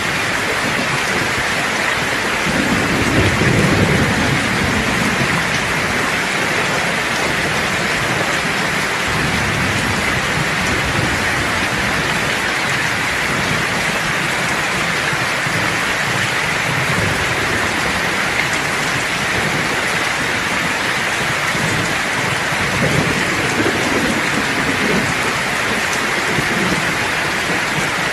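Steady rain falling, with two low rolls of thunder: one a few seconds in and another near the end.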